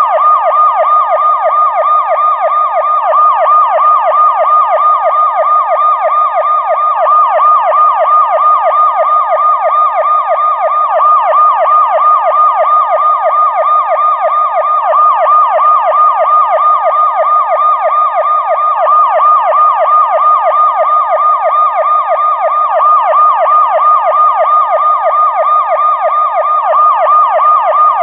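Police siren in its fast yelp mode: a rapid rising-and-falling wail repeating several times a second, held at a steady loud level.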